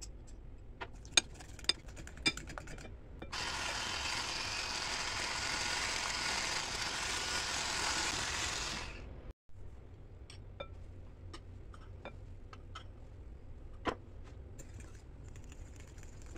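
A few sharp clinks of utensils against a ceramic bowl, then an electric hand mixer runs steadily for about six seconds, beating banana bread batter, and stops. Afterwards light scattered ticks and one louder knock as the bowl is worked by hand.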